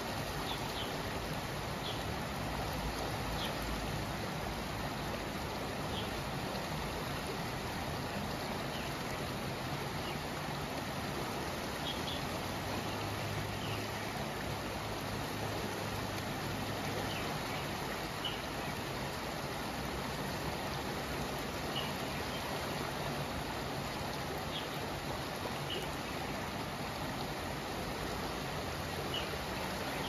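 Steady rushing of a swollen river flowing fast down a concrete-lined channel, with white water over a small drop.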